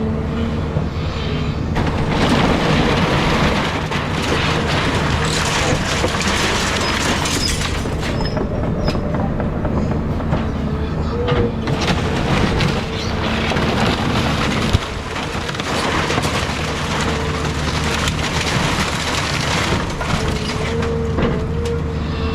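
Caterpillar 323 excavator's diesel engine running steadily with a steady whine, while wooden house debris cracks and crunches under the machine in long spells. A single sharp bang comes about fifteen seconds in.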